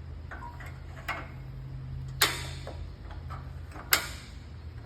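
A few sharp metallic clicks and knocks, the two loudest about two and four seconds in, from loosening the angle-adjustment lock on a metal-cutting bandsaw, over a steady low hum.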